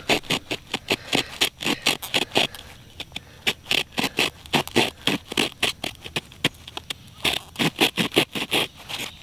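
Multi-tool saw blade sawing into a wooden fireboard, cutting the ember notch for a hand-drill fire: rapid back-and-forth scraping strokes, several a second, in three runs with two short pauses.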